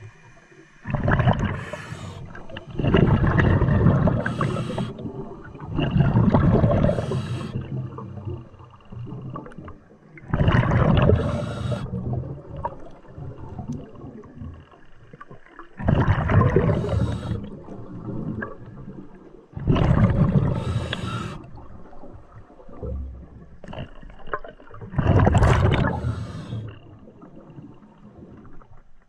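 Scuba diver breathing through a regulator underwater: exhaled bubbles gurgle in loud bursts every few seconds, with quieter stretches between breaths.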